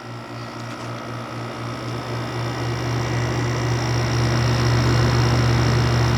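Older Haier 6000 BTU air conditioner (model HWR06XC3-T) running, its compressor humming steadily under the rush of fan air. The hum grows louder over the first few seconds.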